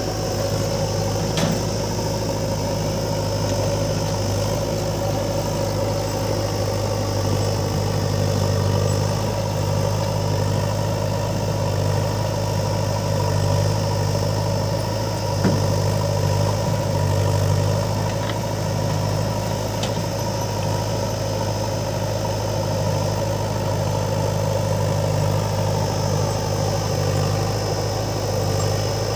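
Diesel engines of a JCB 3DX backhoe loader and an Eicher tractor running steadily at low revs, with a few short knocks over the engine noise, the clearest about halfway through.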